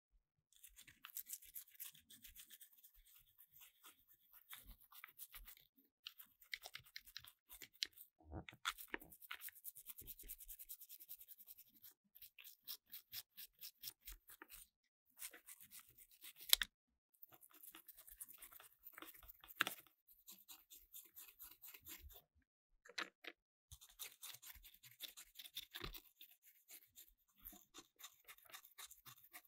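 Brisk scratchy scrubbing or rubbing on small plastic controller parts, in rapid runs of strokes with short pauses and a few sharper knocks.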